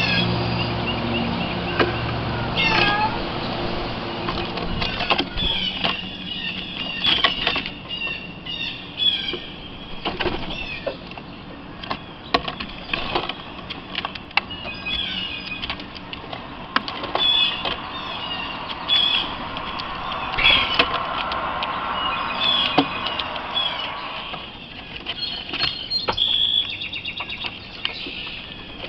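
Small birds chirping, with many short, repeated calls throughout, among scattered sharp clicks.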